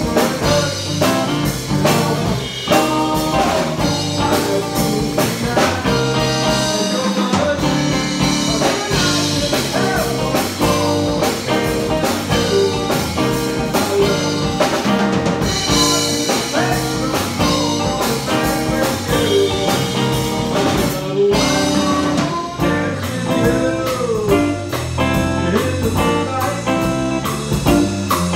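Live rock band playing: electric guitar, electric bass and drum kit together in a steady groove.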